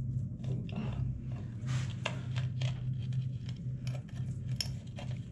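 Scattered small scrapes and clicks of hand work on freshly laid ceramic wall tiles, over a steady low hum.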